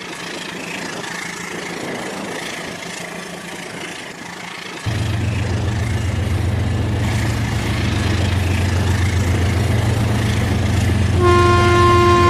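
Rail King remote-control toy train running: a steady low motor hum sets in about five seconds in, and near the end the train's horn sounds one steady toot of about a second and a half.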